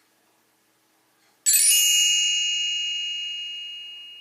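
A single bright chime struck once, about a second and a half in, ringing on and slowly fading: the page-turn signal of a read-along book.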